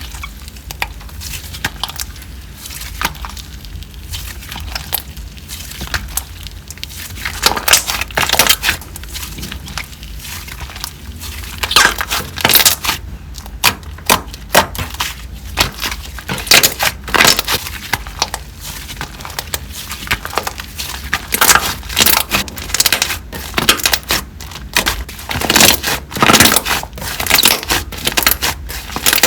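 Slime being squeezed and pressed by hand, making crunchy crackling and popping; soft for the first several seconds, then louder crackles in clusters.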